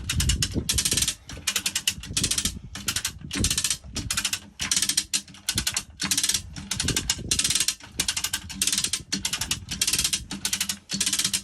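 A ratcheting hoist is worked in quick strokes, about two a second, each stroke a rapid run of pawl clicks, as it lifts a sailboat's engine off its mounts to get at the leaking sump seal.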